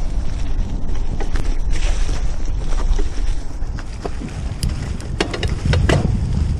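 Wind rumbling over the microphone of a camera riding along on a bicycle, with scattered clicks and rattles from the bike over rough ground, more of them in the second half.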